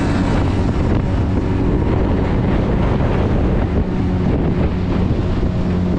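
A small boat's motor running steadily underway, with strong wind buffeting the microphone.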